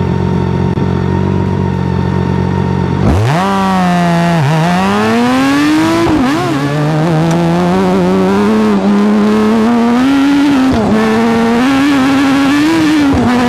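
BMW K1600GT's 1,649 cc transverse inline-six engine idling steadily for about three seconds, then pulling away hard. Its note climbs steadily, with brief drops in pitch at the gear changes.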